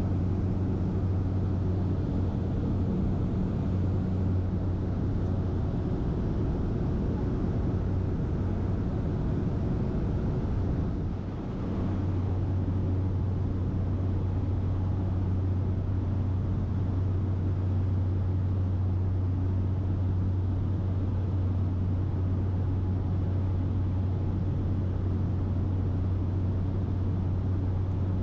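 Steady cabin drone of a small propeller plane in flight: a constant low engine and propeller hum over a wide rush of noise. About eleven seconds in the sound dips briefly and the hum drops out for a moment before it comes back.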